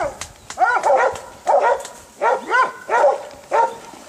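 Hunting dogs barking in quick bursts, about a dozen short barks, as they bay a wild boar in the water.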